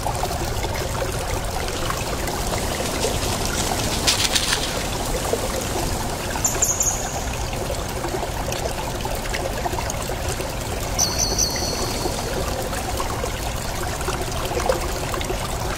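Steady trickling of river water along the bank, with a few short high chirps about four, six and eleven seconds in.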